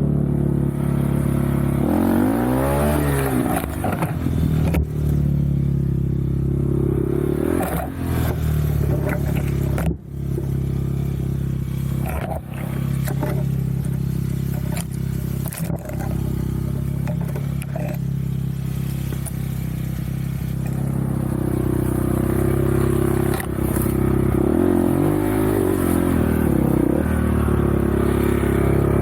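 Off-road vehicle engine running under way, its pitch sweeping down and back up twice as the revs change, with occasional knocks and clatter.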